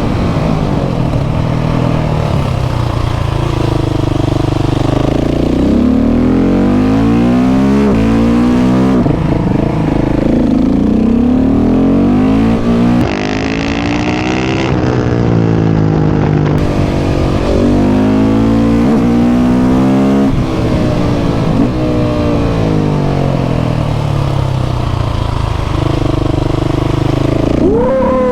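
KTM 690 SMC R single-cylinder engine through a Leo Vince aftermarket exhaust, ridden hard: the revs climb and drop again and again as it accelerates, shifts and backs off.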